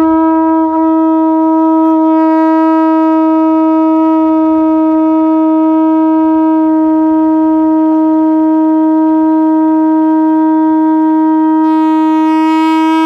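Hindu conch shell (shankh) blown in one long, steady, loud note.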